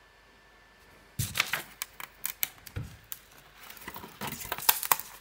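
Stiff CubicFun 3D puzzle sheets being picked up and handled: a quick, irregular run of clicks, crackles and rustles that starts about a second in.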